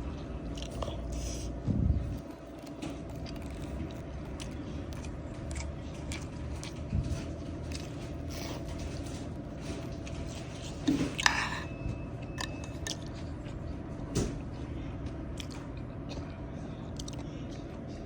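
A person eating a boxed lunch up close: chewing and biting, with scattered small clicks and a few louder knocks, about two seconds in, around eleven seconds and near fourteen seconds.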